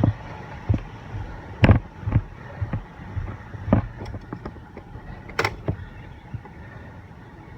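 Bicycle riding noise: a low rumble of movement with irregular knocks and rattles, two sharper knocks about two seconds and five and a half seconds in.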